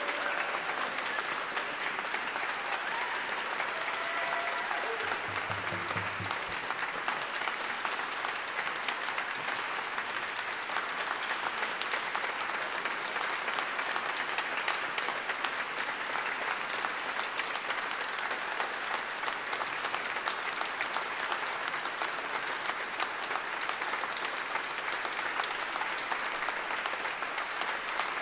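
Audience applauding steadily, a dense mass of clapping that holds without a break.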